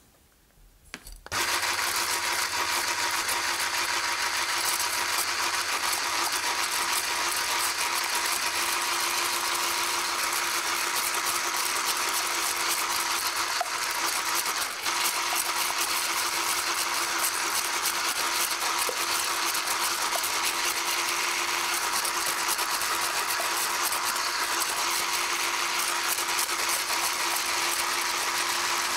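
Electric hand mixer beating egg yolks and sugar in a glass bowl. It switches on about a second in and then runs steadily at one constant pitch.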